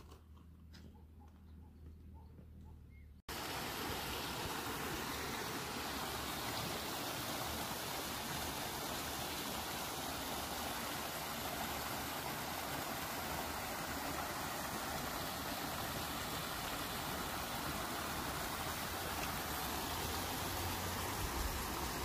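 Faint quiet with a few soft clicks, then, from an abrupt cut about three seconds in, the steady rushing of water flowing over a rocky stream bed.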